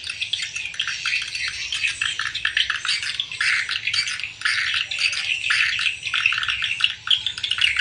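Swiftlet calls: a dense, continuous chatter of many short, overlapping chirps and twitters.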